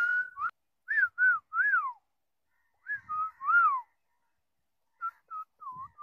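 Ring-necked parakeet whistling: clear whistled notes that swoop up and down, in four short phrases with pauses between them.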